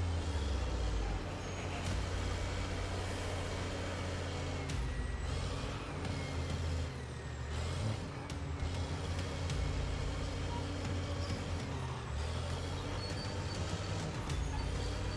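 Bulldozer's diesel engine running steadily under load, with a few short knocks and a faint whine that rises and falls midway.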